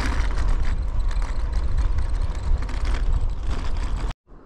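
Wind buffeting the microphone and bicycle tyres rumbling and crunching over a gravel road while riding, cut off abruptly near the end.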